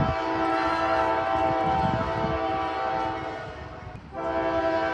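CSX freight locomotive's multi-chime air horn sounding a chord: one long blast that fades out about three seconds in, then a second blast starting about four seconds in.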